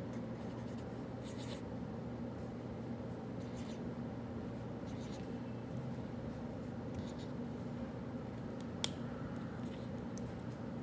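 Pen writing on paper in short scratchy strokes, on and off, over the steady hum of a room. One sharp click about nine seconds in.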